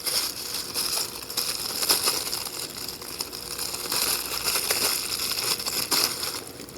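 A plastic parts bag crinkling and rustling as hands rummage through it, searching for crimp socket terminals.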